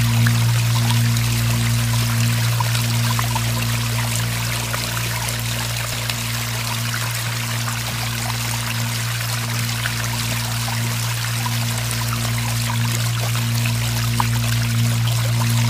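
Meditation background track: a steady low drone held under the sound of flowing, trickling water.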